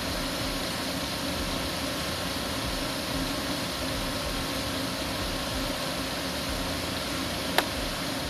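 Refrigerant recovery machine running steadily, its compressor and fan pulling the refrigerant out of a heat pump, with a faint steady hum under an even rushing noise. A single sharp click sounds near the end.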